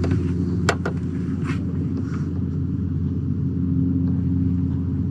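Steady low hum of a boat's motor running, with two short sharp clicks just under a second in.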